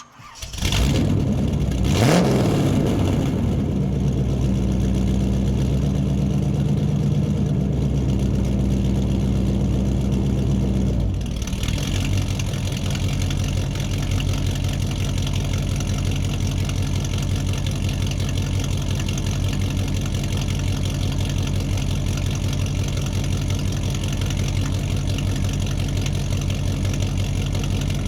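Muscle car engine starting, revved once about two seconds in, then idling fast. Around eleven seconds in the idle drops to a lower, pulsing beat. The sound echoes in a large room.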